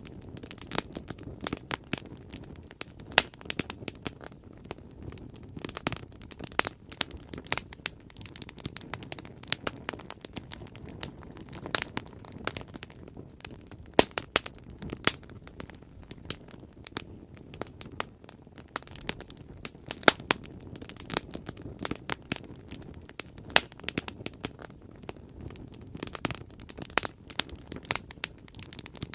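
Bonfire burning: a steady low rumble of flames with frequent, irregular sharp crackles and pops of burning wood.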